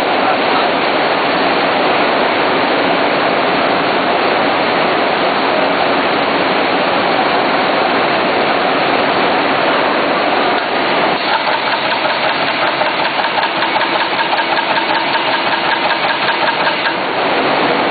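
Middle-ring welding machine running under test: a loud, steady mechanical noise, joined about eleven seconds in by a regular rhythmic beat from its moving parts.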